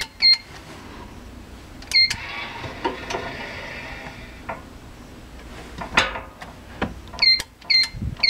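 Electronic in-room hotel safe being tested: its keypad gives short, high beeps as the buttons are pressed, a couple near the start, one about two seconds in and two more near the end. Between them comes a couple of seconds of mechanical whirring and rattling as the lock works, and a single click about six seconds in.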